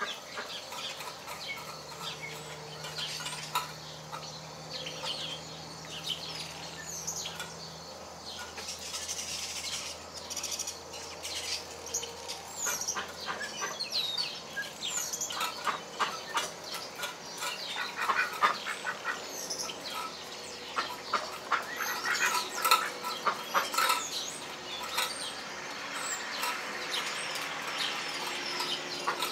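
Hens clucking and giving short chirps as they feed, with many quick sharp taps of beaks pecking at food on concrete, the pecking busiest in the second half.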